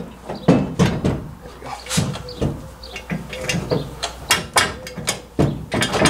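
Irregular metal clicks and knocks, about two a second, as a heavy-duty receiver hitch's frame and bolts are worked into place under a pickup's rear frame.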